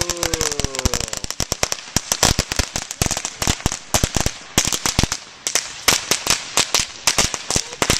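A ground firework going off on pavement: a long, irregular run of sharp cracks and pops, many every second, like a string of firecrackers, easing off briefly about five seconds in.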